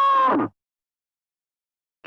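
The end of a cow's moo: a pitched call that holds steady and cuts off about half a second in, followed by silence.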